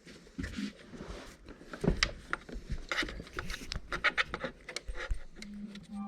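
Hands working a RAM mount's arm: irregular clicks, knocks and rubbing as its tightening knob is turned.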